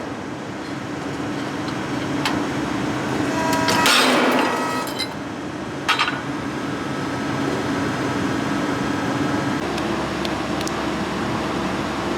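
Hydraulic ironworker machine running with a steady hum. About four seconds in, a rush of noise swells and fades over about a second as the ram makes a punching stroke, and a sharp metallic knock follows about two seconds later.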